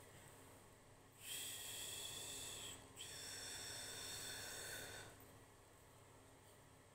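A woman blowing out two long breaths, each lasting about two seconds, the second following right after the first.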